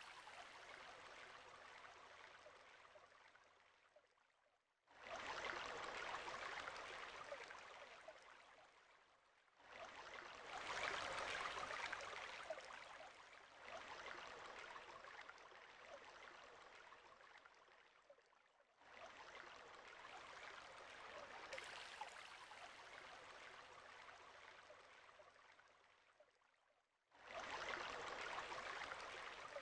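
Running water of a shallow gravel-bed brook, a rushing hiss that comes in several stretches, each starting abruptly and fading away.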